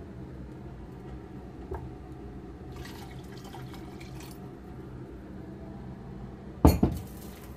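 Water poured back into a rice cooker's inner pot, a faint trickle over a steady low hum, then one loud knock near the end.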